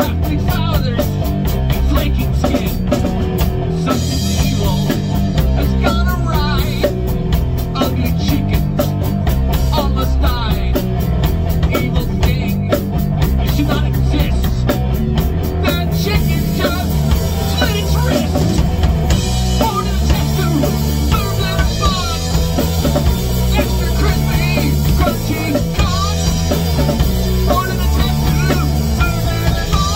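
A live rock band playing a drum kit, electric guitar and bass, with a man singing. A steady cymbal beat gives way to a continuous wash of cymbals about halfway through.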